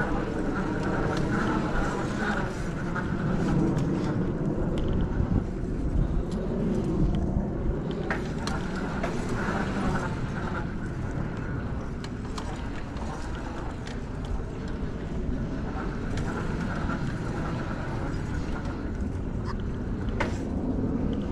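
Outdoor city street ambience: a steady rumble of road traffic, with a few brief clicks.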